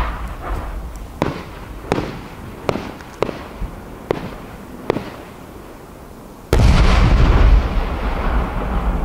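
Aerial firework shells bursting: a string of sharp separate bangs, about one a second, each with a short echoing tail. About six and a half seconds in, a sudden much louder continuous rumble of bursts sets in and carries on.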